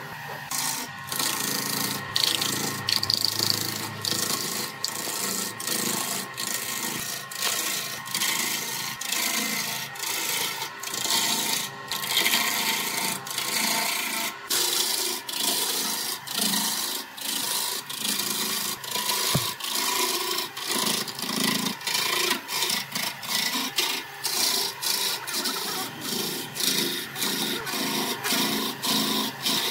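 Wood lathe turning a large wooden blank while a hand-held gouge cuts into it, a continuous scraping, shaving sound that swells and dips with each pass of the tool, about one to two passes a second, over the steady hum of the spinning lathe.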